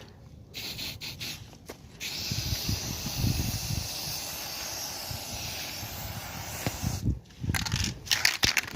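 Aerosol spray-paint can spraying onto a wall: a steady hiss for about five seconds, starting about two seconds in, then a few short sprays near the end.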